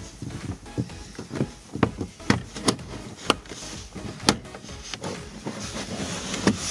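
Plastic clicks and snaps as a plastic pry tool works the pre-loaded clips of a 2012 Dodge Journey's dash-top speaker panel loose: about ten sharp, irregular clicks, the loudest in the middle.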